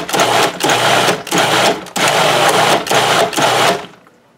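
Cuisinart food processor motor whirring in a string of short pulses as it chops canned diced tomatoes, garlic and seasonings into a raw pizza sauce. It stops shortly before the end.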